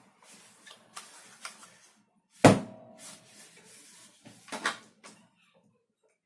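Clicks and knocks of hard parts being handled and fitted together: light clicks, one sharp knock about two and a half seconds in with a brief ring, then a short clatter of knocks a couple of seconds later.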